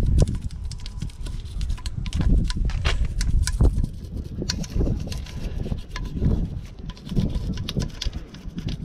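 A small brush scrubbing an alloy wheel, agitating wheel cleaner between the spokes and around the rim in quick, irregular scratchy strokes, with a low rumble underneath.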